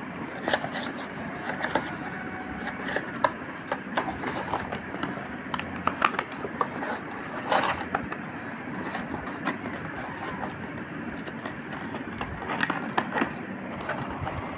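Cardboard packaging of a realme Buds Q2 Neo box being handled and slid open by hand: irregular scraping, rubbing and small clicks as the sleeve and inner tray move.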